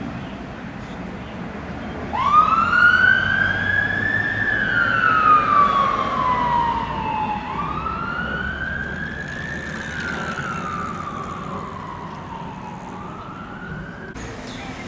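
Fire engine siren sounding a slow wail over road noise. It starts about two seconds in, rises and falls about every five seconds, and grows fainter over the last few seconds.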